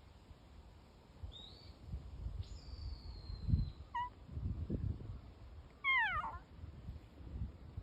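A cat meowing: a brief short call about four seconds in, then a louder meow about six seconds in that slides down in pitch.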